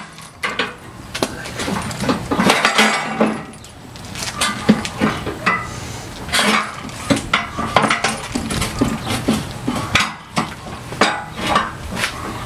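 Irregular metallic clinks, knocks and scraping of steel bolts and hardware being worked into the tight-fitting holes of a tractor loader bucket's tooth bar.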